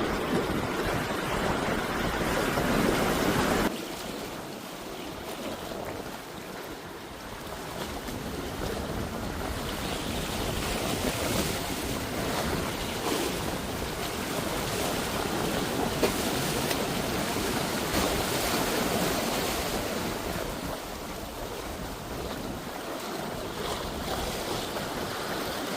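Sea waves washing ashore, mixed with wind on the microphone. The sound drops suddenly about four seconds in and then gradually builds again.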